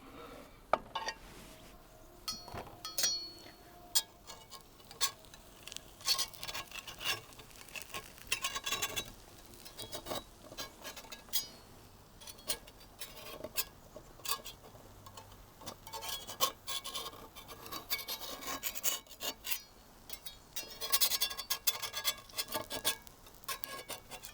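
A utensil scraping, rubbing and clinking against a cast iron skillet pan in irregular strokes, working a chickpea-flour flatbread loose from the pan.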